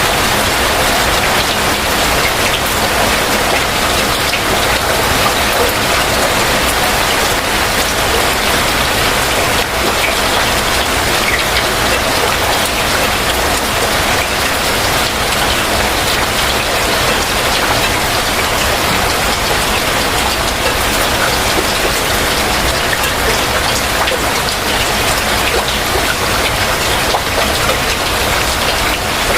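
Heavy rain falling steadily, a dense even hiss of many drops with no let-up.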